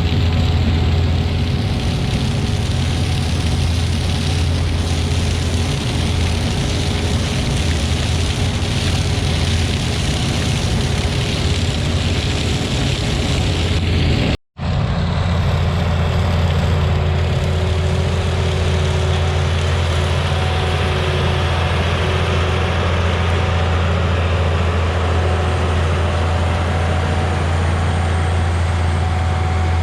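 Heavy diesel farm machinery running steadily, with a deep steady hum. The sound drops out briefly about halfway where the recording cuts, then carries on much the same.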